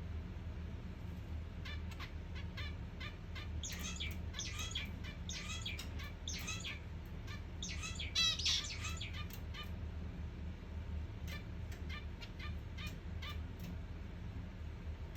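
Pet zebra finches calling: a long run of short, repeated calls, densest and loudest around the middle, the loudest one just past halfway. A steady low hum runs underneath.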